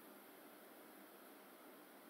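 Near silence: only a faint steady hiss of room tone.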